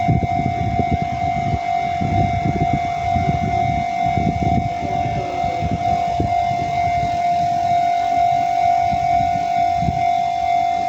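Japanese railway level-crossing alarm sounding, a steady high electronic tone that holds through, over an irregular low rumble.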